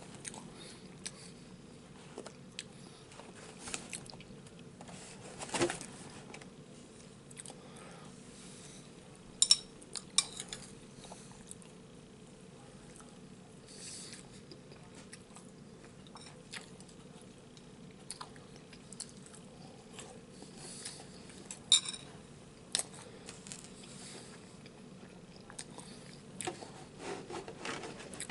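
A person eating milk-soaked cinnamon-toast-style cereal from a bowl with a spoon: scattered sharp clinks of the metal spoon against the bowl and bouts of chewing and crunching, over a faint steady hum.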